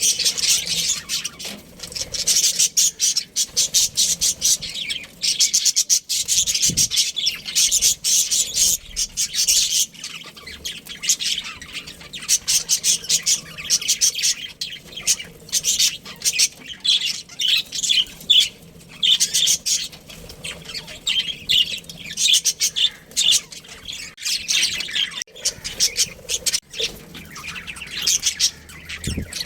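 Many small birds chirping and chattering in a rapid, continuous, high-pitched stream of short calls.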